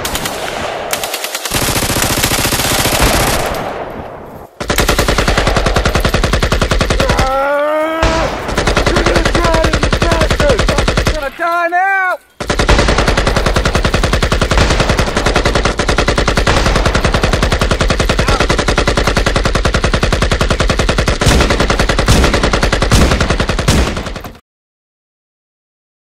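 Rapid automatic gunfire in long, sustained bursts. A man shouts twice in the middle, and the firing cuts off suddenly near the end.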